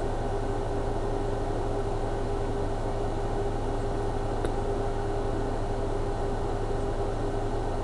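Steady mechanical hum and hiss with one constant mid-pitched tone, unchanging throughout, and a single faint tick about halfway through.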